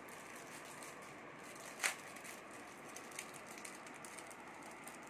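Quiet steady hiss with one sharp click about two seconds in, followed by a few faint ticks.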